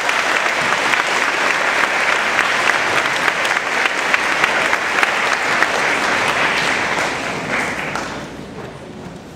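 Audience applauding, steady clapping that dies away about eight seconds in.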